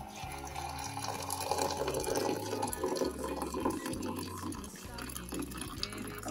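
Water poured in a steady stream from a jug into a ceramic mug of instant coffee, the splashing fuller from about a second and a half in as the mug fills and froths.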